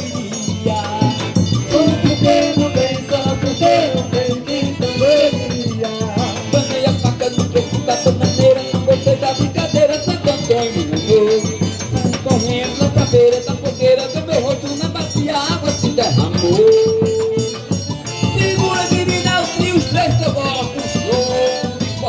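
Instrumental break in a festive São João song: a melody line with one long held note partway through, over a steady shaker-like percussion rhythm, with no singing.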